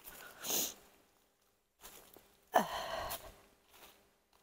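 A woman's short sigh, falling in pitch, a little over halfway through, amid rustling footsteps in dry leaf litter.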